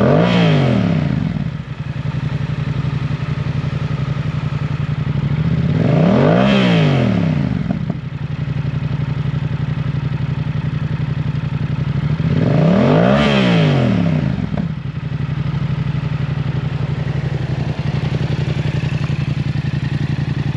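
2021 Yamaha XSR700's 689 cc parallel-twin engine through a Yoshimura full-system exhaust, idling steadily and revved three times about six seconds apart, each rev rising in pitch and falling back to idle over about two seconds.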